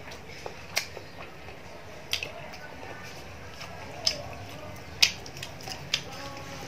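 Eating sounds: a handful of sharp, crisp clicks at irregular intervals, the loudest about five seconds in, from crunching and handling crispy fried small fish.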